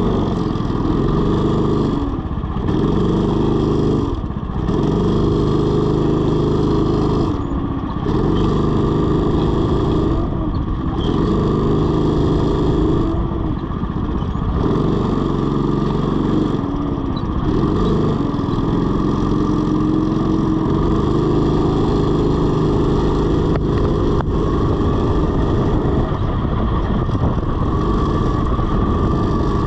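Rental go-kart engine running hard around a track, its note dipping briefly about six times as the throttle is eased for corners, then holding steady.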